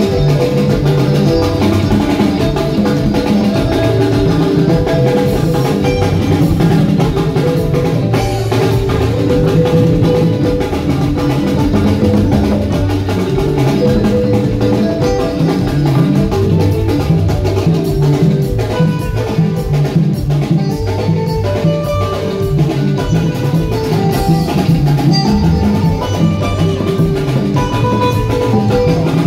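Live band playing instrumental music, with a drum kit keeping a steady beat under guitars.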